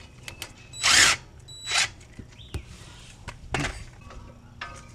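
Power drill with a hex bit spinning out brake caliper bolts in three short bursts, the loudest about a second in.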